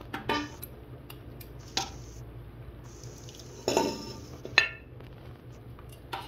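Metal tongs clinking against the rim of a pot and a plate as pieces of cooked beef are lifted out of broth: about five separate sharp clinks, the loudest just past the middle, over a low steady hum.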